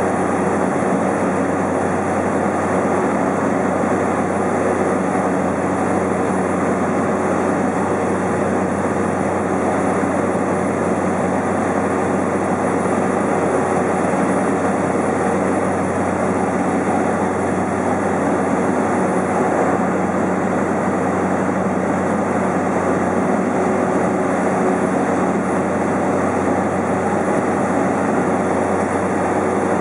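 Cessna's engine and propeller droning steadily in flight, heard inside the cabin: a low hum under an even roar of engine and air noise, unchanging.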